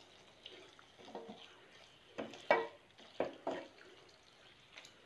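Wooden spatula stirring and scraping thick chicken masala around a stainless steel pan: a series of short, irregular scrapes and soft knocks, some with a brief squeak.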